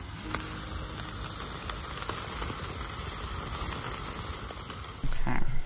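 Burger patty sizzling on a steel grill grate over a wood fire: a steady hiss with a few faint crackles.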